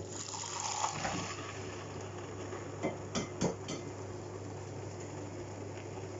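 Tap water running into a stainless-steel pan of soapy water in a steel sink, with a few light clinks of metal pans about three seconds in.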